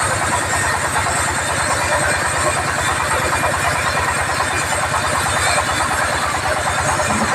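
Band sawmill running steadily, a machine drone with a fast, even throb.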